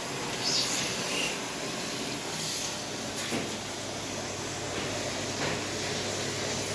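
A vacuum cleaner running steadily, with a few short knocks and scrapes.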